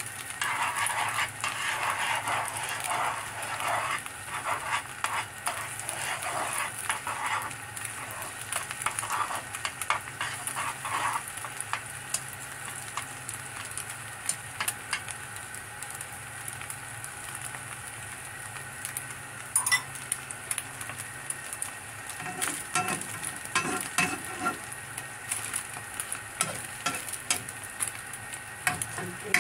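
Beaten egg sizzling as it fries in oil in a non-stick wok, loudest in the first few seconds and then easing. Chopsticks and then a metal spatula click and scrape against the pan, most often near the end.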